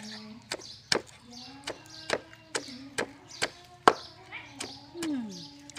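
Wooden pestle pounding in a wooden mortar: sharp, even knocks about two a second, with one louder strike about four seconds in.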